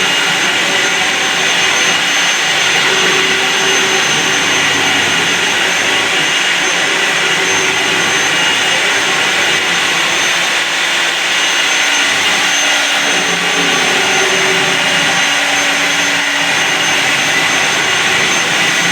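CNC router spindle cutting a 3D carving into wood: a steady, loud whine over a rushing hiss, with lower tones that come and go as the machine works.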